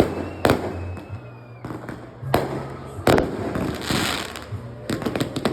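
Fireworks going off: several separate sharp bangs, a crackling burst about four seconds in, and a quick run of pops near the end.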